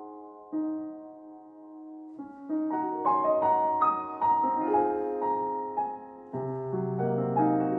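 Background piano music: soft chords, then a run of single notes, with a fuller chord and a low bass note about six seconds in.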